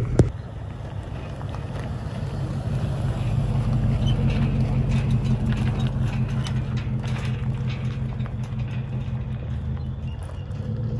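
Pickup truck engine running at low revs as it pulls away towing a loaded utility trailer, with scattered light clicks and rattles.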